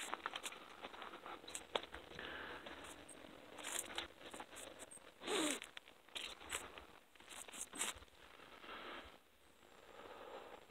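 Footsteps crunching over dry fallen leaves and grass at a walking pace, with irregular rustles and scrapes. There is a louder rustle about halfway through.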